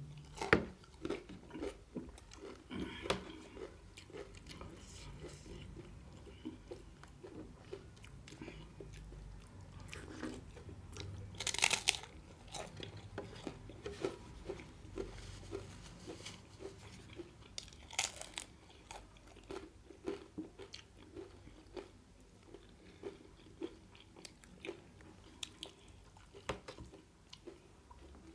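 Close-miked chewing and biting of a mouthful of beetroot momo, a steady run of small wet chewing sounds broken by a few sharper, louder bites.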